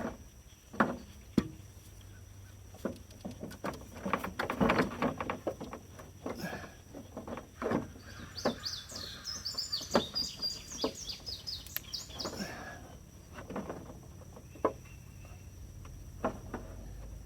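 Pliers clicking and knocking against the ignition switch's retaining nut as it is tightened by hand, in short irregular bursts. A bird sings a quick run of high chirps for about four seconds in the middle.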